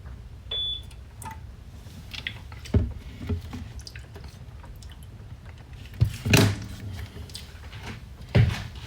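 Kitchen handling sounds while making coffee: a few knocks and clatters of cups and containers being set down and moved, over a low steady hum. A brief high tone sounds about half a second in.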